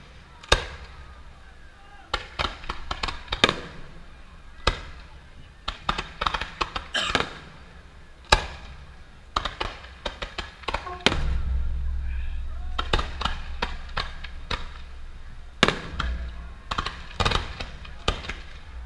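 Aerial fireworks exploding: irregular clusters of sharp bangs and crackles throughout. A deep rumble builds under them for a few seconds past the middle.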